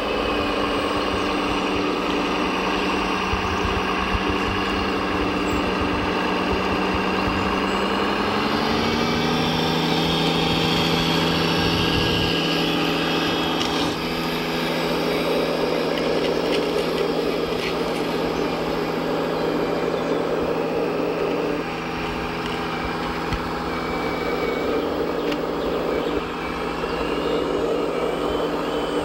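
Radio-controlled Mercedes-Benz Actros truck running with a steady truck-engine sound that steps up in pitch about eight seconds in and then holds at the higher pitch.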